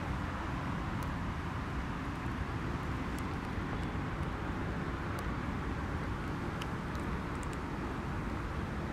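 Steady outdoor background rumble of distant road traffic, with a few faint small ticks.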